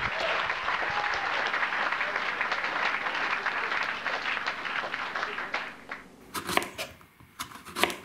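Applause that fades out about five and a half seconds in, followed near the end by a few sharp knife cuts through eggplant onto a cutting board.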